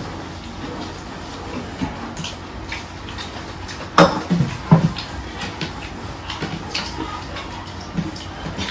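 Eating noises at a meal of chicken curry and rice: wet chewing and mouth sounds with scattered small clicks, and two louder sudden sounds about four seconds in.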